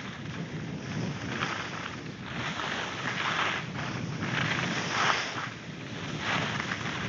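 Skis hissing over snow in repeated turns, a swish about every second, with wind rumbling on the microphone.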